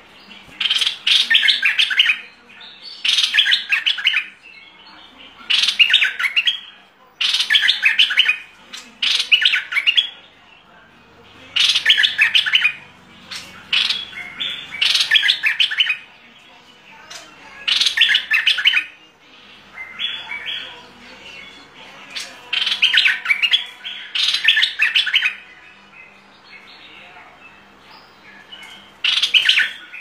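Caged stripe-throated bulbul singing: loud, fast phrases of about a second each, repeated every two to three seconds, about a dozen in all.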